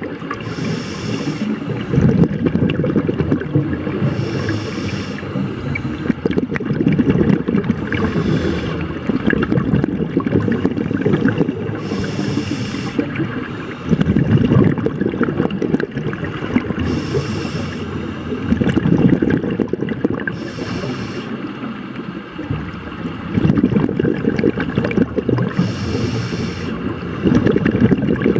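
Scuba diver breathing through a regulator underwater, in a slow cycle of about one breath every four seconds. Each breath brings a short hiss of the inhale and then a rumbling, gurgling rush of exhaled bubbles.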